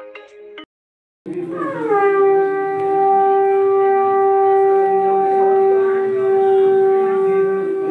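A conch shell (shankh) blown in one long, loud, steady note that starts about a second in, sliding up a little in pitch before it settles. Just before it, a short chiming tune cuts off.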